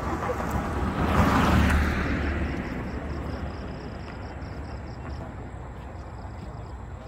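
A car passing along the road, its tyre and engine noise swelling to a peak about a second and a half in and then fading away.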